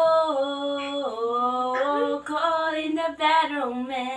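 Female voices singing a cappella, with no accompaniment: long held notes that slide up and down between pitches.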